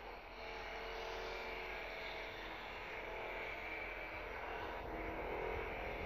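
Multirotor drone propellers whining steadily, several pitches held together.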